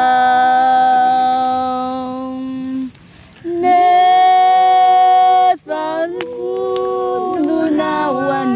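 Background song: sung voices holding long, drawn-out notes, with a short break about three seconds in, then moving between notes in steps.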